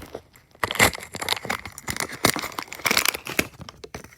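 Small blind-bag packets crinkling and tearing as they are handled and ripped open, in a run of irregular crackles with a few louder rips.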